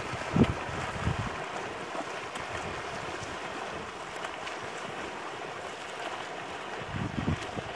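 Steady splashing and lapping of open water churned by swimmers' front-crawl strokes. Low wind gusts rumble on the microphone just after the start and again near the end.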